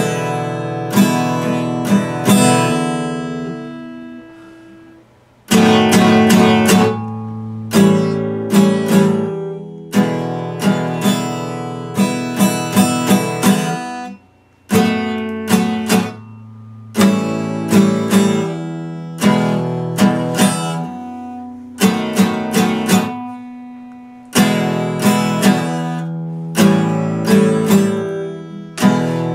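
Epiphone acoustic guitar strummed in chords, each group of strokes left to ring and fade before the next. It dies away almost to silence about four seconds in and again about halfway through, then starts up again.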